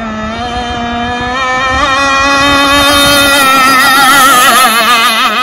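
Gas-powered RC hydroplane's two-stroke engine running flat out, a high wavering buzz that grows louder as the boat runs in close. It falls away sharply right at the end.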